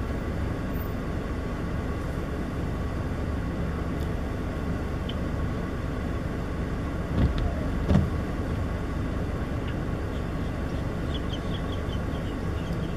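Steady low outdoor rumble, like distant road traffic, with two short louder thumps a little past the middle and a few faint high chirps near the end.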